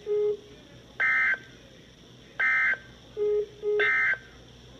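Three short, loud, screeching digital data bursts, about 1.4 seconds apart: the Emergency Alert System end-of-message codes that close a broadcast warning. Short low beeps come just before the first burst and as a pair between the second and third.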